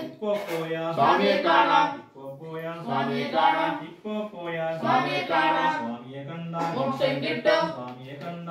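Voices singing an Ayyappa devotional chant without instruments, in drawn-out phrases of one to two seconds with short breaks between them.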